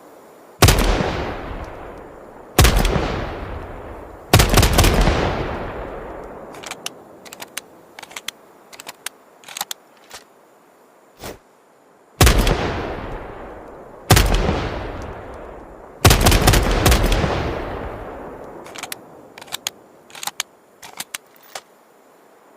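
Benelli M4 12-gauge semi-automatic shotgun firing two strings of three shots, each shot with a long echoing tail. After each string come a series of small mechanical clicks and knocks.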